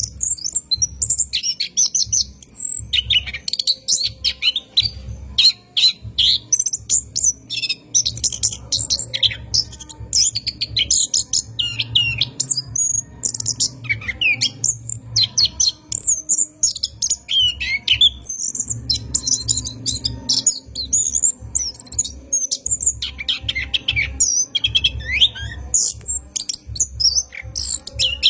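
Chestnut-backed thrush (anis kembang) in full song, a long, unbroken run of rapid, varied high chirps and whistled phrases with only brief pauses.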